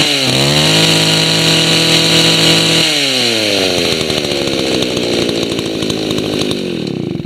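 Vintage Stihl 08 two-stroke chainsaw running: blipped at the start, held at high revs, then its speed falls slowly for about four seconds before the engine stops near the end.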